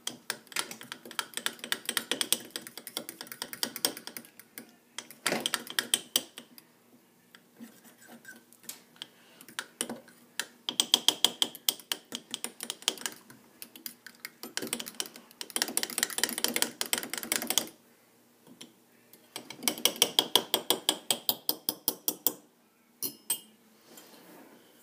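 A utensil clicking rapidly against the inside of a coffee cup while stirring thick cake batter to work out the lumps, in several bursts of a few seconds with short pauses between.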